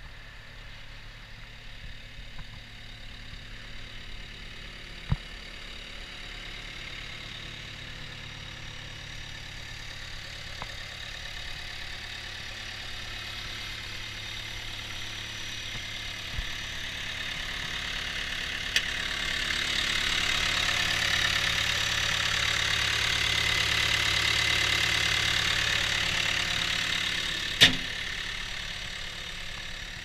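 Cat 242B3 skid steer's diesel engine idling steadily, growing louder for several seconds past the middle and then easing off. A few sharp clicks, one loud near the end.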